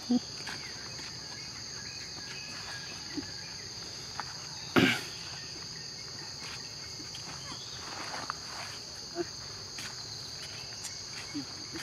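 Insects droning with a steady high-pitched buzz, with a brief knock about five seconds in and a few faint clicks.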